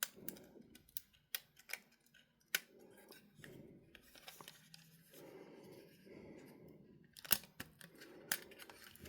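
Small sharp clicks and taps of parts being handled while a component is worked onto a post inside a Sony MZ-E730 minidisc player. The clicks come irregularly, roughly one every second or so, with louder ones about two and a half seconds in and again near seven seconds.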